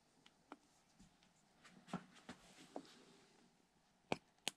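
Faint handling noise on a workbench: small plastic clicks and taps as an epoxy bottle is set down and a small plastic mixing cup is picked up, with two sharper clicks near the end.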